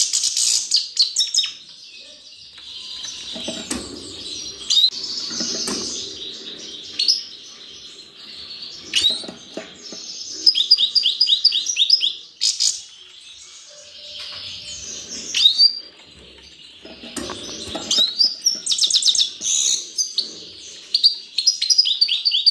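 Caged European goldfinches calling and twittering, with quick runs of repeated tinkling notes, and bursts of wing flutter as the birds dart about the cage.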